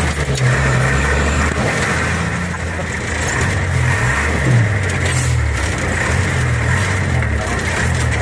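An old truck's engine heard from inside its cab while driving, running loudly with its pitch rising and falling several times as the revs change.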